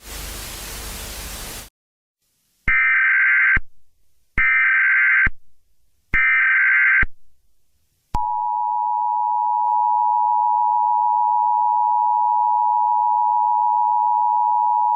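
Emergency Alert System start sequence. A short burst of static hiss comes first, then three roughly one-second bursts of screeching SAME digital header data. About eight seconds in, the steady two-tone EAS attention signal (853 and 960 Hz) begins and keeps sounding.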